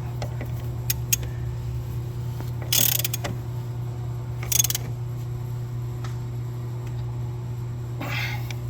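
Hand ratchet clicking in a few short bursts, about three seconds in, again a second and a half later and near the end, as the main bolt of a 2013 Ford Escape's engine/transmission mount is tightened. A steady low hum runs underneath.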